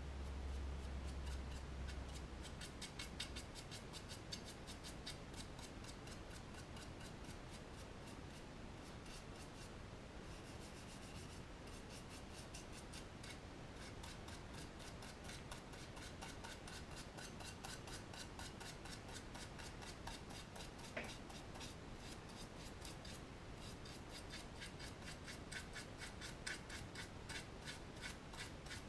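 Paintbrush bristles scrubbing back and forth over a model wagon body in quick short strokes, dry-brushing enamel paint: a faint, rapid scratching.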